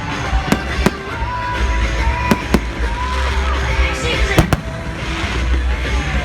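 Fireworks bursting, about six sharp bangs, several in quick pairs, over loud show music with heavy bass.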